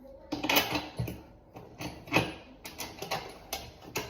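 Irregular sharp clicks and knocks of hand tools and bike parts being fitted together, several a second, as the bike's stabilizers go on.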